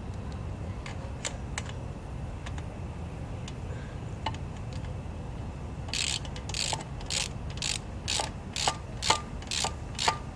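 Ratchet wrench being worked in short strokes on a bolt, rasping about twice a second from about six seconds in, with a few lighter clicks before.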